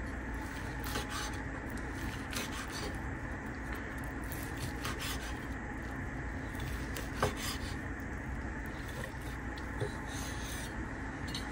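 Chef's knife sawing through a smoked turkey breast on a wooden cutting board: irregular soft rasping strokes, with the blade now and then scraping the board, over a steady room hum.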